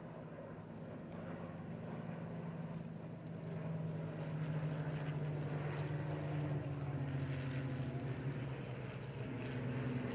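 Drone of WWII piston-engined fighter aircraft flying past in formation, growing louder over the first few seconds and then holding steady, the engine note shifting slightly lower later on.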